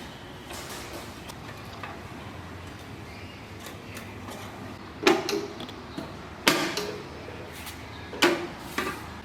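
Three sharp knocks about a second and a half apart, each followed by a lighter rattle, over a low steady hum.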